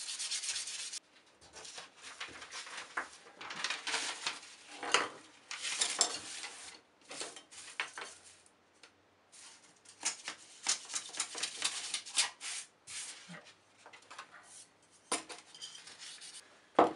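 Sandpaper rubbed by hand over a turned plum-wood letter opener: irregular rasping strokes, sometimes several a second, with a short pause a little past the middle.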